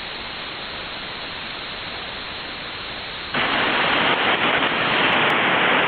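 Shortwave receiver hiss from a FlexRadio 6300 tuned to the 20-metre amateur band, with no one talking. About three and a half seconds in, the hiss jumps suddenly louder and brighter as another station keys up its transmitter just before speaking.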